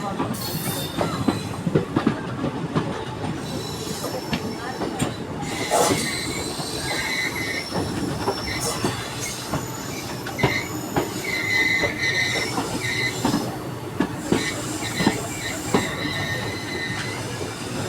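Train wheels running slowly over rail joints and points as the train switches onto a station loop line: repeated clacks and knocks, with high flange squeal coming and going through the middle stretch.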